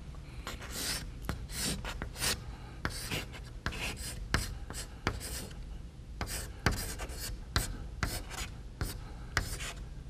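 Chalk scratching and tapping on a blackboard as a word is written in capitals: an irregular run of short strokes with sharp ticks.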